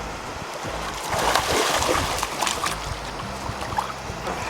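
Water splashing in a burst about a second in, lasting under two seconds, with a few scattered splashes after, over a steady low engine hum.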